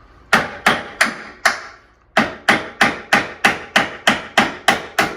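A hammer driving nails by hand into a wooden door frame. Four spaced blows come first, then a steady run of about three blows a second.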